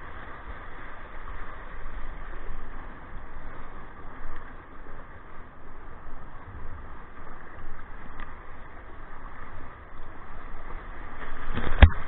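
Broken surf whitewater rushing around a kayak, with wind rumbling on the microphone. Just before the end, a sharp splash of spray hits the camera.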